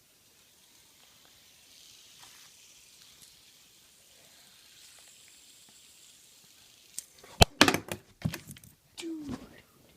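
Faint hiss, then about seven seconds in a quick cluster of loud, sharp knocks and clicks as the handheld camera is jolted, followed by a short exclaimed word.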